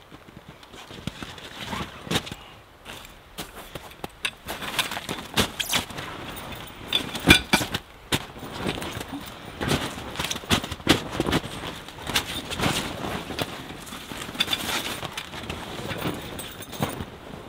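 Heavy canvas of a Tomount bell tent being handled during pitching: fabric rustling and scraping with irregular sharp crunches and knocks, mixed with footsteps crunching in snow.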